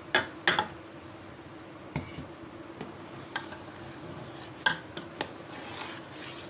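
Sharp clinks of a glass jug and a metal spoon against an aluminium cooking pot as mango puree is poured into thick kheer and stirred, about eight clinks with the loudest at the start. A soft swishing of stirring builds near the end over a faint steady hum.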